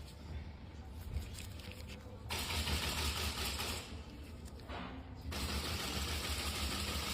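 Electric nail drill grinding down a nail: a steady low motor hum, with two stretches of loud hissing grinding that start and stop abruptly, the second about a second after the first ends.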